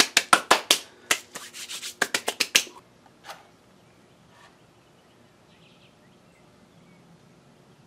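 Hands slapping and brushing together to knock off moulding sand: a quick run of a dozen or so sharp slaps over about two and a half seconds, with one more a moment later. After that only faint background.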